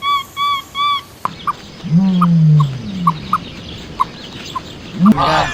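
Domestic fowl calling: a run of four evenly spaced arched calls, then after a break, scattered short sharp calls with a low drawn-out call about two seconds in.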